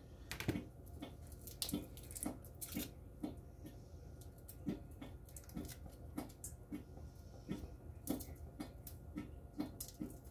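Light knocks on a cutting board during vegetable prep, coming fairly evenly at about two a second.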